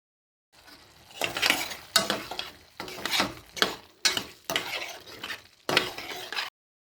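Food being stirred in a hot pan, with sizzling and utensil scraping, heard in several short segments that start and stop abruptly.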